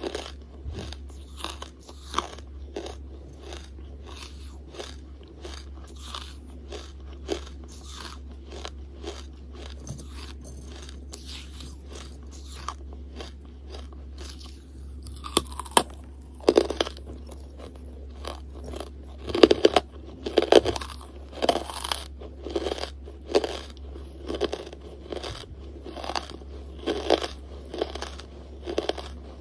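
Hard charcoal being bitten and chewed: a continuous run of crisp crunches, a few a second, with a sharper bite about halfway through and louder, heavier crunching after it.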